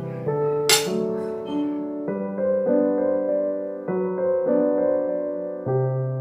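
Background solo piano music, with a short sharp click about a second in.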